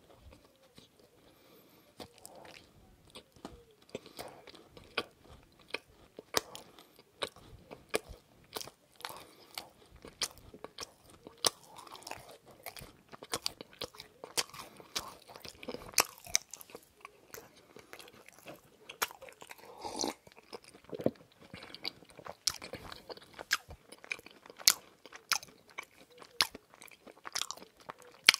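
A person chewing dessert close to the microphone: a run of sharp crunching clicks mixed with wet mouth sounds, sparse at first and coming thick and irregular from about two seconds in.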